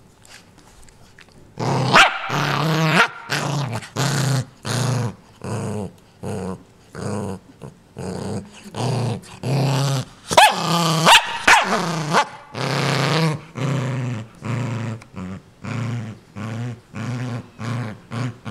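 A small dog growling over a plush toy it is guarding, in a long run of repeated pulses, one or two a second. The growling starts about a second and a half in, with louder snarling outbursts near the start and again around the middle.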